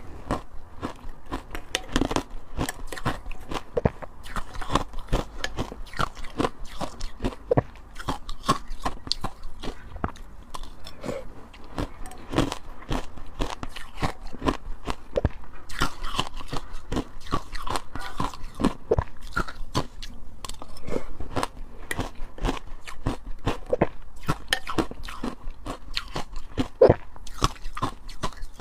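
Ice being bitten and chewed close to the microphone: a continuous run of irregular sharp crunches and cracks.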